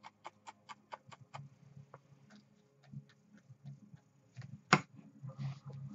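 A paintbrush tapping against the painting surface in quick light dabs, about six taps a second for the first second and a half, then a few scattered faint clicks and one sharper knock near the end.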